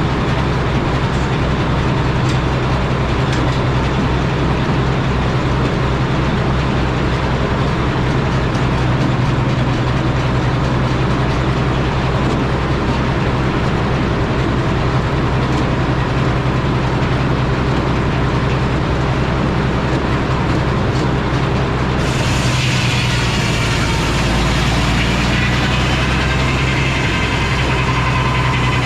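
Frick sawmill and its driving engine running steadily with a deep hum. About two-thirds of the way through the sound changes and a higher whine joins it.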